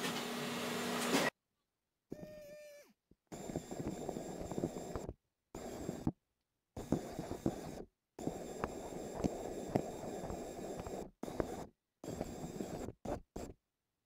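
Small wheeled robot's geared DC motor running with a steady whine, then short stretches of whirring and clicking as it drives its origami wheels over a hard floor, each stretch cut off abruptly by dead silence.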